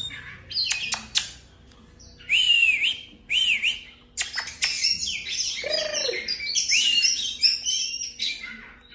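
Oriental magpie-robin singing: phrases of varied whistled notes and sharp clicks, with short pauses between them.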